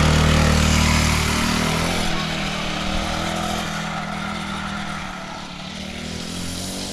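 FRP D8003 40cc four-stroke mini bike engine running on the throttle as it climbs a hill, loud at first and fading steadily after about a second and a half as the bike pulls away.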